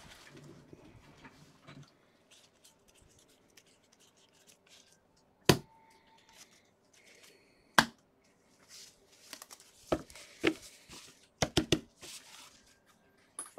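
Trading card packs and cards being handled on a table: faint rustling and light tearing, two sharp clicks a couple of seconds apart, then a quick run of clicks and taps near the end.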